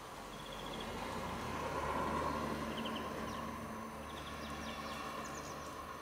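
A distant engine passing by, its hum swelling to a peak about two seconds in and then slowly fading, with faint short chirps of small birds several times.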